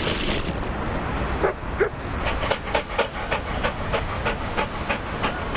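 Cartoon sound effects under a steady hiss: a couple of short squeaks about a second and a half in, then a run of even clicks about four a second, like the footsteps of a walking cartoon dog.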